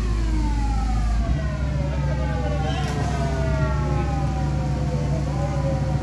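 A siren wailing, its pitch sliding slowly downward with a brief small rise near the end, over a steady low engine rumble.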